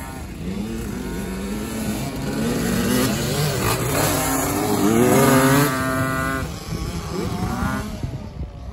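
Small youth dirt bikes revving around a track, the engine pitch climbing and dropping as the riders open and close the throttle. One bike passing close is loudest about five seconds in.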